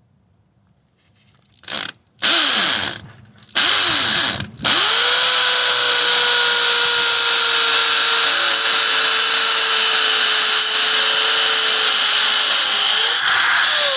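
Corded 3/8-inch hammer drill boring into a concrete slab to make an anchor hole. Two short starts come about two seconds in, then it runs steadily under load for the rest.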